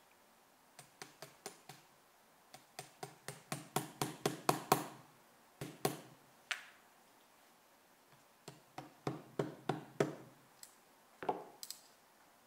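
Sharp metallic clicks and light taps of a thin steel pin working against small brass parts on a metal plate, in runs that quicken and get louder, with a few single clicks between.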